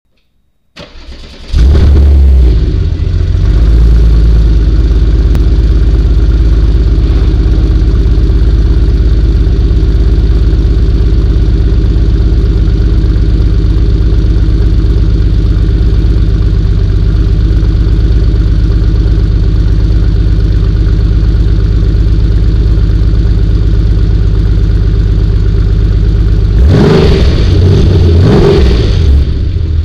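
Porsche 964 Carrera's air-cooled 3.6-litre flat-six through an M&M aftermarket exhaust, heard right at the tailpipe. It starts about a second in with a brief rev, settles into a steady idle, and is revved a few times near the end.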